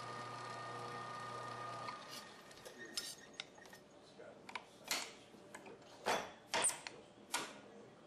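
Hoover Automatic Muller's single-phase motor and gear reducer running with a steady hum, cutting off about two seconds in. Then a series of sharp clinks and short scrapes of tools against the glass muller plates.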